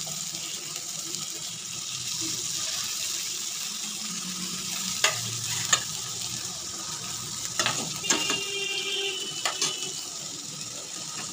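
Pieces of fish marinated in coriander paste sizzling steadily in mustard oil on a preheated flat griddle pan (tawa). A few sharp clicks come through the sizzle, about halfway in and again a couple of seconds later.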